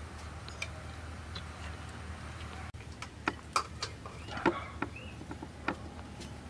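Scattered light clicks and taps of fingers and food against plates as rice and curry are eaten by hand, coming thicker after about three seconds, with a few short bird chirps over a steady low background hum.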